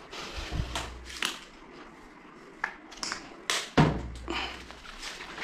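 Handling sounds: irregular clicks and knocks as a plastic shampoo bottle and tub are handled, the loudest a knock nearly four seconds in.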